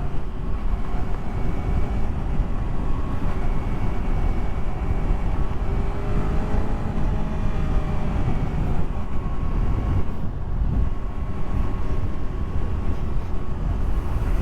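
Yamaha R3's 321 cc parallel-twin engine running at a steady pace while riding, under heavy wind rush on the helmet-mounted microphone.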